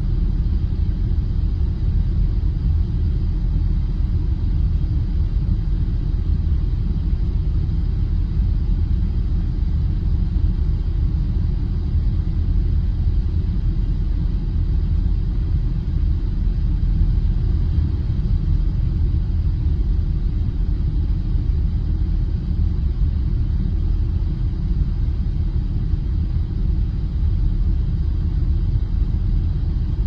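Car engine running with a steady, even low rumble, the sound almost all in the deep bass, with no change in pitch or level.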